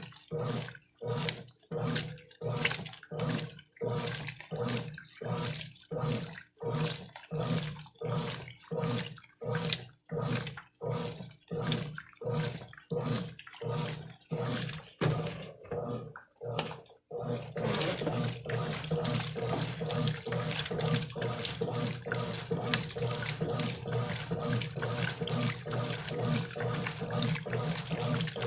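Brastemp Clean 5 kg washing machine agitating, sloshing the wash water back and forth about one and a half strokes a second. A little past halfway the strokes stop and a steady rush of water takes over.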